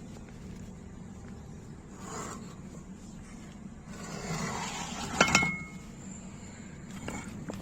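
Metal scraping and rubbing, then two sharp metallic clinks close together that ring briefly, over a steady low hum.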